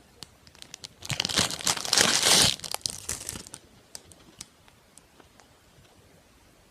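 Close-up crinkling of packaging, loudest from about one second to two and a half seconds in, followed by a few light clicks that die away.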